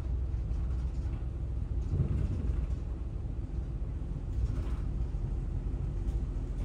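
Moving bus heard from inside the cabin: steady engine and road rumble.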